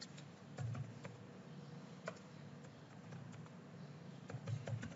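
Faint computer keyboard typing: a few scattered key clicks, then a short run of key presses near the end.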